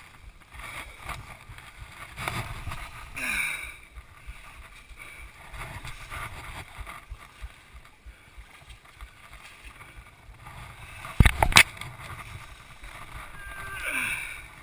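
Rustling and handling noise from a chest-mounted action camera as the rider moves about the fallen dirt bike in thick brush, with two sharp knocks in quick succession late on.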